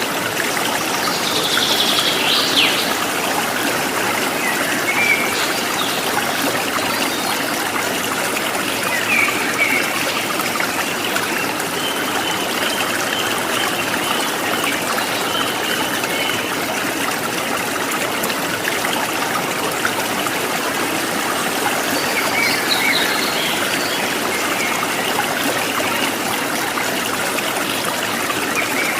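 Steady rushing and trickling of a flowing stream, with a few short bird chirps now and then, most clearly near the start and again about two-thirds of the way through.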